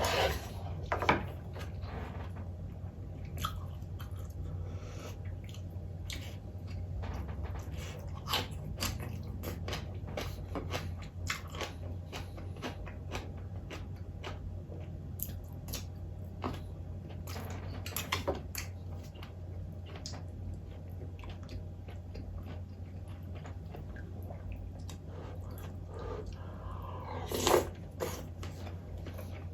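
A person chewing and biting food close to the microphone, with scattered crunches and small sharp clicks, a few louder near the start and about 27 seconds in. A steady low hum runs underneath.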